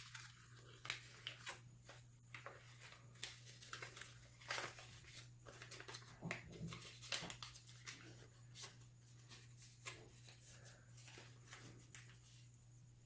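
Faint crinkling and crackling of origami paper as fingers open a flap and push in a sink fold, with many quick crackles that thin out near the end.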